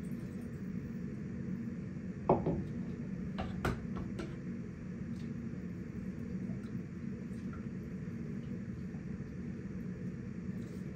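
Kitchen cookware being handled over a steady low hum. There is one sharp knock about two seconds in, then a quick cluster of clicks and clinks a second later, as a lid and utensils meet the cooking robot's bowl and the countertop.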